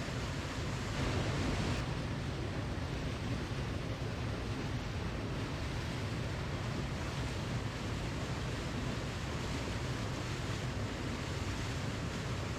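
Steady rushing of falling water from a waterfall, an even noise that swells slightly about a second in.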